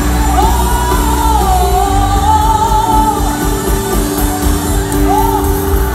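Live worship music played loud in a large hall: a singer holds long notes that slide up and down, over sustained keyboard chords and a heavy, pulsing bass.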